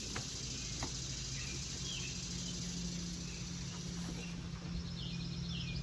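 Outdoor garden ambience: a steady high hiss, with short birds' chirps a few times and a couple of faint clicks early on. A low steady hum comes in about two seconds in.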